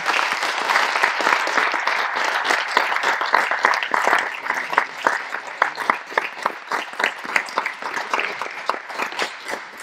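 Audience applauding: dense clapping from many hands that thins out toward the end.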